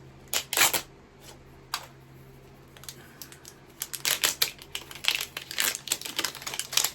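Plastic packaging of a Miniverse miniature kit being handled and opened: a few sharp clicks and crinkles in the first two seconds, then a dense run of crinkling and clicking in the second half.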